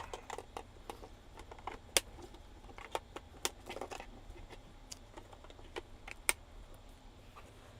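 Scattered sharp clicks and light rattling of plastic wiring-harness connectors being handled and plugged onto a Freightliner CPC4 engine control module, with a few louder snaps about two, three and a half and six seconds in.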